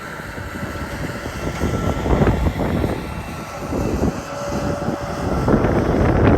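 Harvest machinery engines running in the field, with wind buffeting the microphone in gusts that swell about two seconds in and again near the end.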